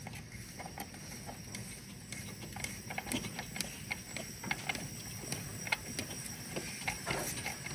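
Ratchet wrench clicking in short irregular runs as the crankshaft of a first-generation MINI Cooper four-cylinder engine is turned over by hand, bringing cylinder two up to the top of its compression stroke for a leak-down test.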